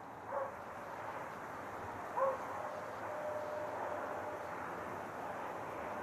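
Hunting dog barking twice, about two seconds apart, the second bark louder, over a steady rushing hiss.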